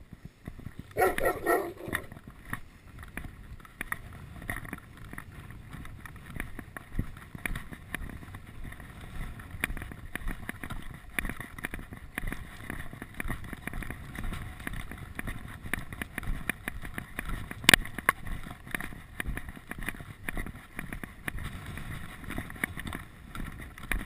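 Footsteps crunching on a gravel path at a walking pace, with strong gusty wind buffeting the microphone. A brief high-pitched call comes about a second in, and a single sharp knock comes about three-quarters of the way through.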